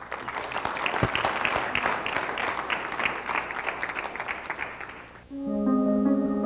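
An audience clapping, dying away after about five seconds; then background music with held notes begins.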